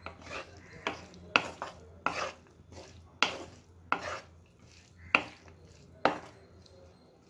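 A spatula stirring and scraping shredded cabbage as it fries in a nonstick kadai: about ten scraping strokes, roughly one a second, stopping about six seconds in.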